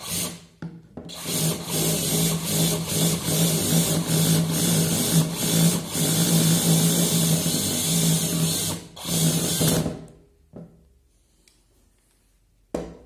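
Cordless drill/driver driving a bolt that fastens the aluminium gear housing of a Bosch GBH 5/40 DCE rotary hammer to its plastic motor housing. A short spurt at the start, then a steady motor whine for about nine seconds that stops. A single short knock comes near the end.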